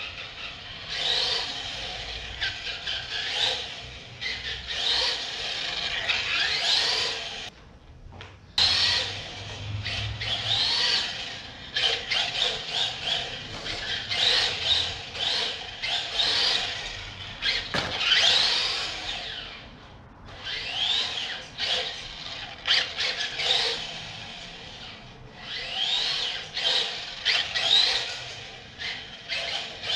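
1/18-scale LaTrax RC car's electric motor and drivetrain whining in repeated bursts of throttle, the pitch rising and falling with speed, with its tyres squealing on a polished hardwood floor. The car briefly goes quiet about 8 s and 20 s in.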